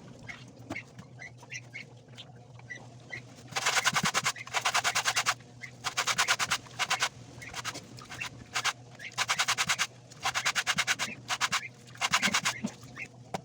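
A brush scrubbing a sneaker by hand in repeated strokes, each stroke a rasping burst of rapid scratchy ticks, with short pauses between strokes.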